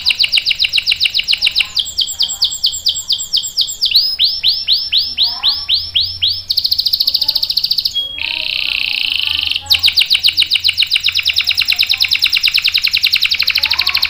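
Canary singing in full song with long rolls: runs of rapidly repeated high notes that switch every couple of seconds between fast trills, a series of falling sweeps and a buzzy stretch, ending with a very fast trill over the last four seconds.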